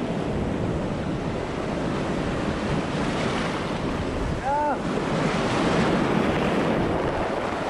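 Sea surf washing and breaking over a pebble shore, with wind on the microphone and water splashing as a man wades through the shallows. A brief call that rises and falls comes about halfway through.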